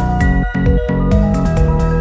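Electronic background music with a steady beat and held synth notes.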